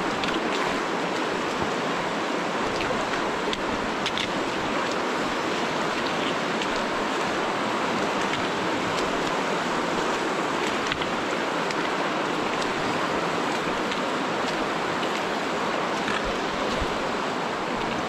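The Virgin River rushing steadily through the Narrows' slot canyon, a continuous even roar of flowing water, with a few faint clicks.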